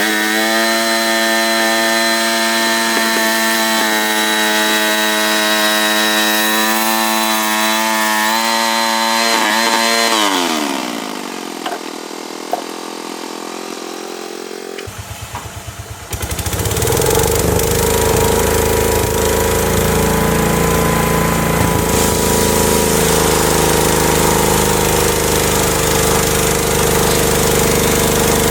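Homemade sawmill running steadily at speed; about ten seconds in its pitch drops as it slows and runs lower and quieter for a few seconds, then it picks back up to a louder, rougher steady run.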